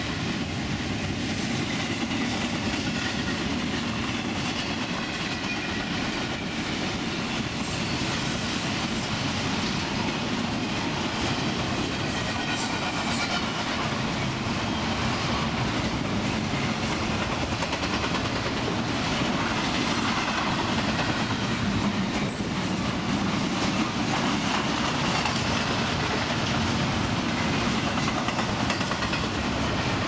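Double-stack intermodal freight cars rolling past at fairly high speed: a steady, dense noise of steel wheels running on rail, with faint wavering high tones from the wheels.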